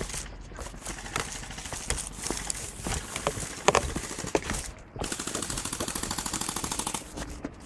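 Airsoft guns firing: scattered single shots for the first few seconds, then a fast, even full-auto burst of about two seconds, ending shortly before the end.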